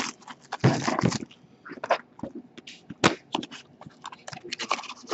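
Plastic wrap crinkling and tearing as a small Select hockey card box is unwrapped and its cardboard flap pried open. The crackles and rustles come irregularly, loudest about a second in, with a sharp snap about three seconds in.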